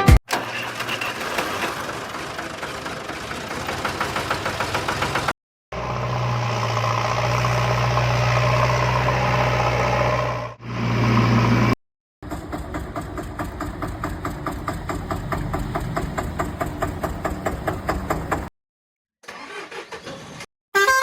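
Engine-type motor sound running in several short clips split by abrupt cuts. Some clips have a quick pulsing beat several times a second, and one has a steady low hum.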